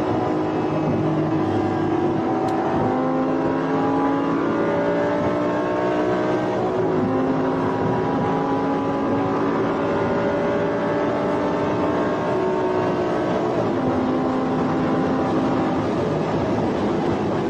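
Audi R8's engine heard from inside the cabin, accelerating at highway speed: its note climbs steadily through each gear and drops at three upshifts a few seconds apart.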